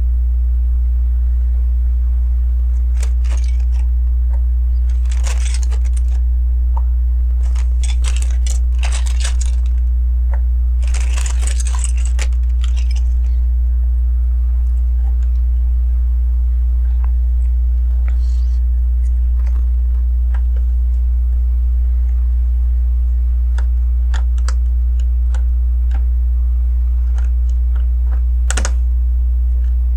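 Plastic LEGO bricks and window pieces clicking and rattling as they are handled and pressed together, in several short bursts of rattling and sharp clicks. A loud steady low electrical hum runs underneath.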